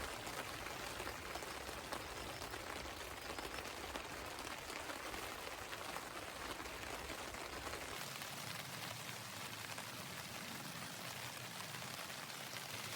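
Steady rain falling, a dense patter of many small drops. About eight seconds in, the deep low rumble under it drops away while the patter goes on.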